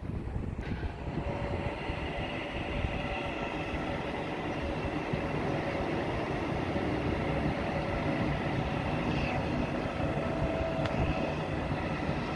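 TCDD E 23000 Başkentray electric multiple unit running past on the tracks: a steady low rumble with several high whining tones held over it.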